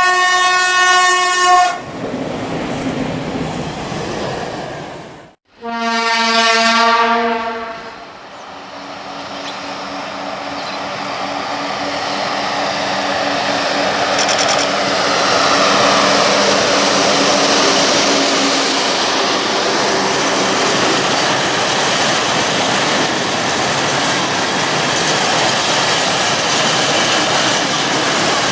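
A train horn sounds twice, a short blast at the start and another about six seconds in. Then a heavy freight train, an ET42 electric locomotive hauling loaded coal wagons, approaches. The steady rumble and clatter of its wheels on the rails builds up and stays loud as the wagons roll past.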